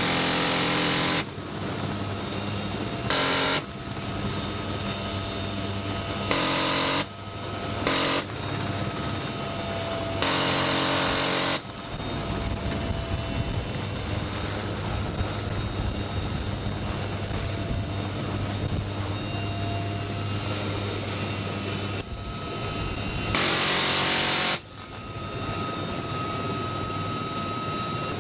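Six bursts of fire from a GAU-18 .50-calibre M2 machine gun mounted in a helicopter's door, each half a second to a second and a half long. Five come in quick succession in the first twelve seconds and the last about 23 seconds in. Between them the helicopter's engines and rotor run steadily.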